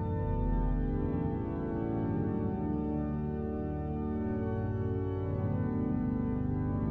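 Church pipe organ playing slow held chords over a deep pedal bass, the harmony shifting every second or so.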